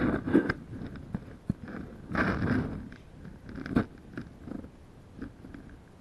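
Shallow water sloshing and splashing in a few irregular bursts, the loudest about two seconds in, as a wading person and a wet dog move about in the water.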